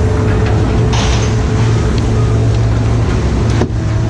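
Engine running steadily with a low, even drone, with a brief dropout near the end.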